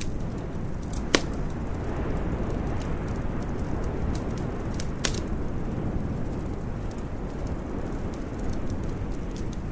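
Wood fire crackling in a fireplace, with a sharp pop about a second in and another near the middle, over a steady low rumble.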